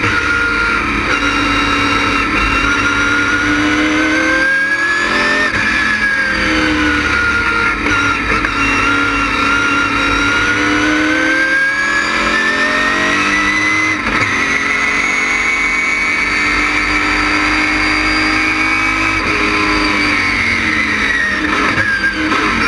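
LS6 V8 of an ASA stock car running hard on a road course. Its note rises and falls with speed, with a long climb through the middle that holds and then drops off near the end.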